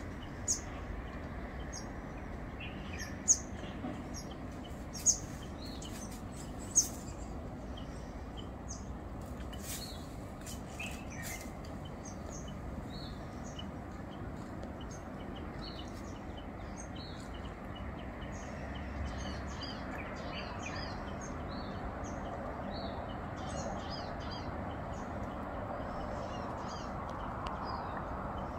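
Small birds chirping in short, scattered calls over a steady background hum, with a few sharp, louder chirps or clicks in the first seven seconds.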